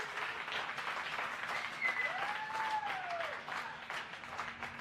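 A room of people applauding and cheering, with one long whoop that rises and falls about two seconds in.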